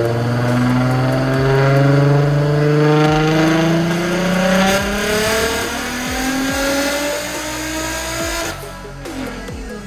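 Swapped-in Toyota 1JZ inline-six engine revving hard under full throttle, its pitch climbing steadily, with a break about halfway through and a second climb. It lets off about a second before the end.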